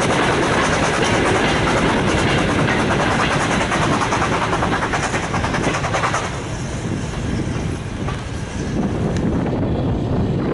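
Freight wagons rolling past, their wheels clicking rhythmically over the rail joints. About six seconds in the sound drops away as the last wagon passes, leaving a low rumble.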